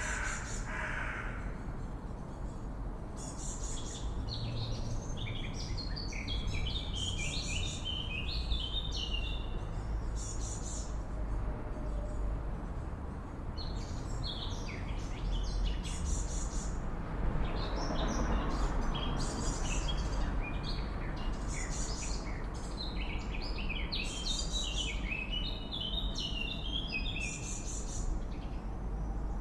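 Swallows twittering in repeated bouts of fast, stepped chirps, over a steady low background rumble.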